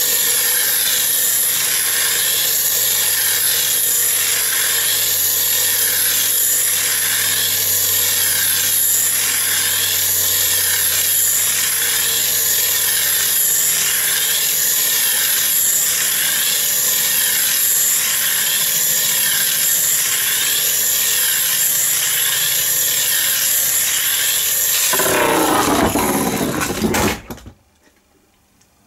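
Spinning steel flywheel gyroscope whirring on its nail tip as it precesses: a steady high whine that wavers about once a second. Near the end the sound sweeps and changes, then cuts off suddenly.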